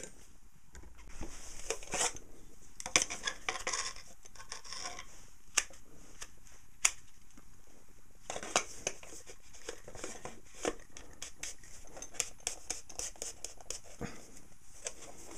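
Handling noise at a workbench: a drill body with a wooden block and a white plastic tube being picked up and moved, giving scattered scrapes, rustles and clicks with several sharp knocks.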